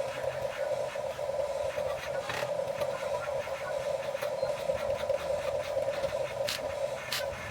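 Small electric motors of a Huina 1550 radio-controlled toy excavator whirring steadily, with a few sharp clicks.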